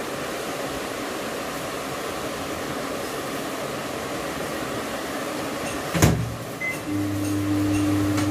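A steady hiss. About six seconds in, a Samsung microwave oven's door shuts with a knock, and about a second later the oven starts running with a steady hum.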